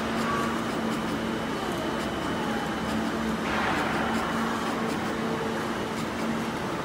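CNC oscillating knife cutting machine running: a steady mechanical hum with one constant tone, and a brief burst of hiss about halfway through.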